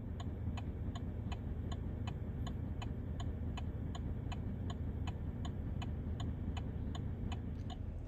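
Inside a vehicle cab: the engine idling steadily while the turn-signal flasher ticks evenly, about two and a half ticks a second.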